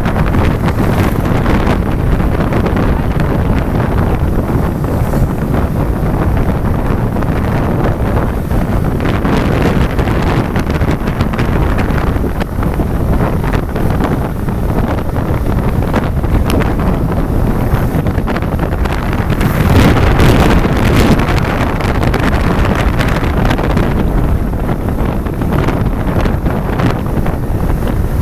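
Heavy wind buffeting the microphone of a moving motorcycle: a steady rushing noise that swells briefly about twenty seconds in.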